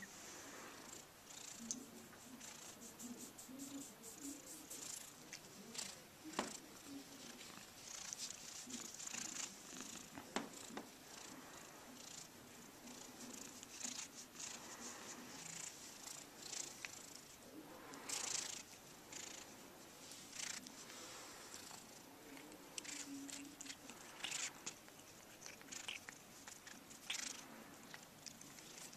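Maine Coon cat purring steadily while being scratched around the head, with scratchy rustling of fur and hand close to the microphone.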